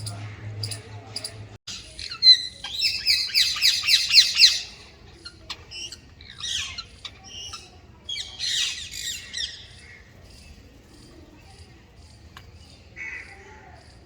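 Birds giving loud, rapid squawking calls in three bouts, the first and loudest starting about two seconds in, with a fainter call near the end.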